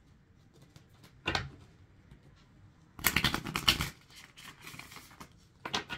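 Thick-cardstock Black Tarot deck being riffle shuffled: a quick run of card flicks lasting just under a second in the middle, with a short rustle of cards before and another near the end.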